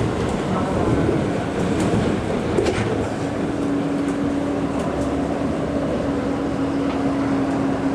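Osaka Monorail car running along its guideway, heard from inside the car: a steady rolling rumble with a humming tone that fades and comes back strongly about three seconds in, and a few faint clicks.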